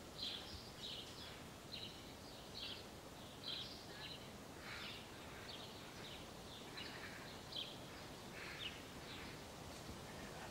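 Faint small-bird song: short separate chirps, roughly one or two a second, over quiet outdoor background.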